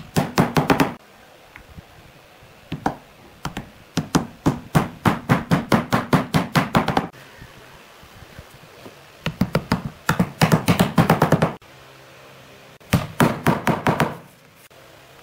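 A small mallet tapping round red inlay discs into holes in a pine board: quick runs of sharp knocks, about five a second, in several bursts with short pauses between.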